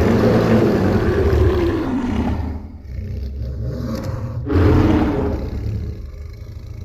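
Godzilla roar sound effect for Raijin Goji: a long, loud monster roar that starts suddenly, eases off after about two and a half seconds, then swells again about four and a half seconds in before trailing away.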